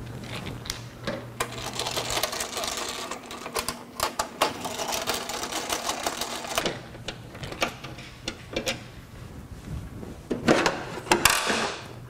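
Plastic cover of an electrode steam humidifier being unfastened and lifted off: a run of irregular clicks, knocks and rattles, with the loudest knocks near the end.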